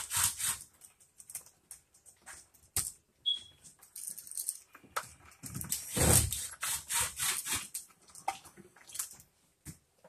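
Irregular small clicks, scrapes and knocks of a screwdriver and a wall switch being worked into a plastic electrical box, with a louder burst of rustling and clattering about six seconds in.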